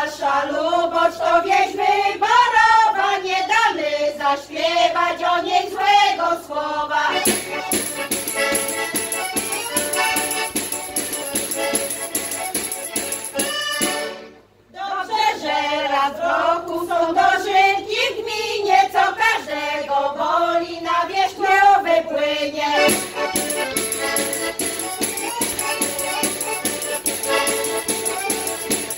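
Women's folk vocal group singing Polish folk couplets in unison, alternating with accordion interludes. A sung verse lasts about seven seconds, then the accordion plays alone. After a short break about halfway through, a second verse follows, then the accordion again.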